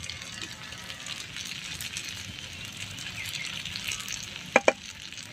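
Food sizzling as it fries, a steady crackling hiss. About four and a half seconds in come two quick, sharp taps.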